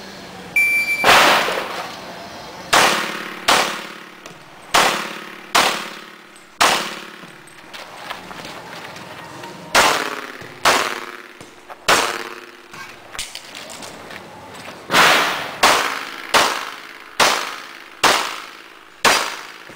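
Shot timer's short electronic start beep, then a semi-automatic pistol fired about fifteen times on a practical shooting stage. The shots come singly and in quick pairs, with pauses of up to about three seconds between groups, and each shot trails off in echo.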